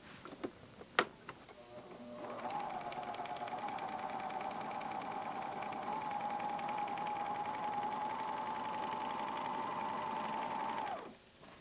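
Pfaff Hobbylock 4870 five-thread serger sewing a decorative chain stitch through fabric: after a sharp click about a second in, the machine starts about two seconds in, runs at a steady speed with an even hum, and stops suddenly near the end.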